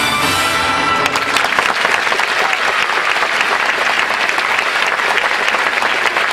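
Circus audience applauding: the music stops about a second in and steady clapping from the whole crowd takes over.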